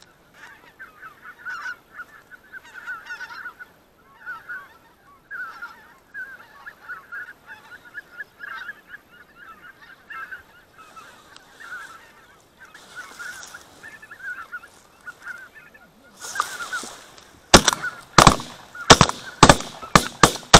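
A large flock of white-fronted geese honking steadily overhead. Near the end, after a short rustle, a rapid volley of shotgun shots from several hunters, about eight in three seconds, much louder than the honking.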